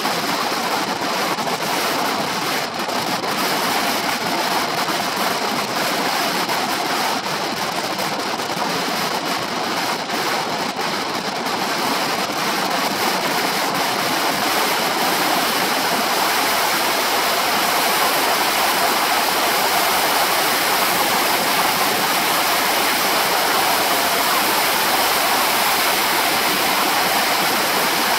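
Steady wind rush on the microphone of a shoulder-mounted camera on a Honda PCX 125 scooter riding at road speed.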